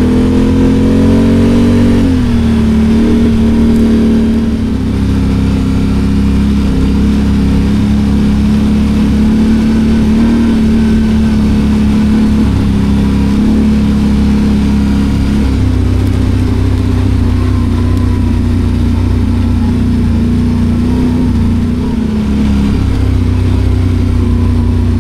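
Engine of a 2024 Can-Am Outlander 850 XMR ATV, a V-twin, running under way on a trail. It revs up over the first two seconds, then eases back and holds a fairly steady note, with small shifts in pitch later on.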